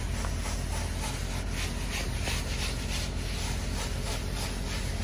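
Hand float rubbing over fresh cement render in quick back-and-forth strokes, a rhythmic rasping about three times a second. A steady low rumble runs underneath.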